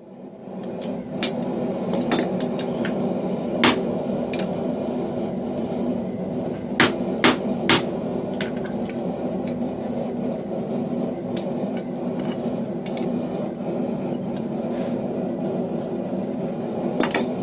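Hammer blows driving a steel drift, a countersink-style tool, through a hole in hot steel to widen it. The blows are irregularly spaced, a few seconds apart, with a quick cluster of three about seven seconds in, over a steady hum that starts about half a second in.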